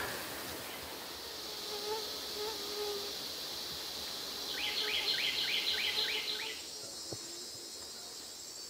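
Insects droning steadily in a high pitch. In the middle there is a quick run of about nine short falling notes, and near the end the drone moves higher and thins out.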